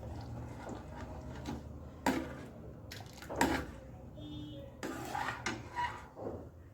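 A spoon knocking and scraping against a kadhai while a thin besan-and-milk mixture is stirred: a few sharp knocks, more of them near the end, over a low steady hum.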